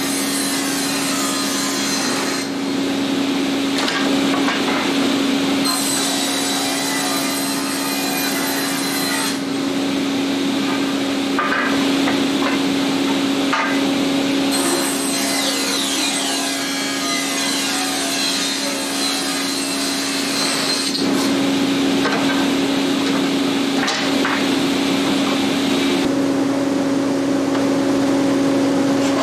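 Table saw running with a steady hum, its blade ripping boards lengthwise. The cutting noise swells and drops away in long stretches as each board is fed through and cleared.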